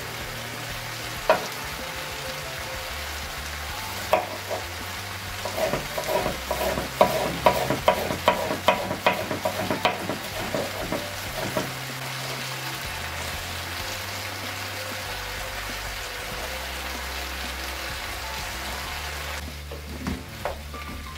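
Broccoli and green beans sizzling steadily in a hot oiled wok. From about five to twelve seconds in comes a quick run of sharp knocks, a knife slicing a yellow pepper on a wooden chopping board.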